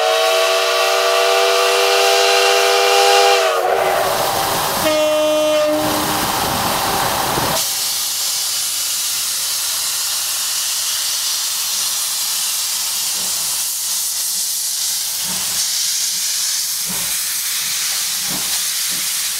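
Steam locomotive C11 325 sounding its whistle: a long chord blast whose pitch drops as it ends, then a short second blast. Hissing steam from the cylinders follows, then slow exhaust chuffs that quicken as the locomotive starts its train.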